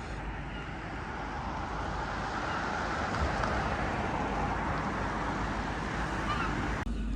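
Road traffic, with a vehicle passing that swells in the middle and fades; the sound cuts off abruptly near the end.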